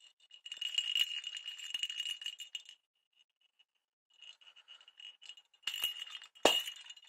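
A bell inside a hollow plastic cat toy ball jingling as the ball is shaken, in two spells of rattling with a pause of about a second and a half between them. Two sharp knocks come near the end, the second the loudest.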